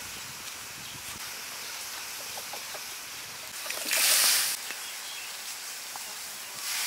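A thin stream of water poured into a large metal pot of soup broth, splashing loudly for about a second midway, over a steady hiss.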